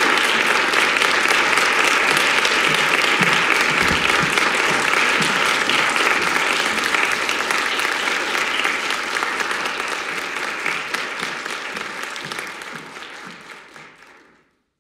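Audience applauding, a dense even clapping that gradually fades out over the last few seconds.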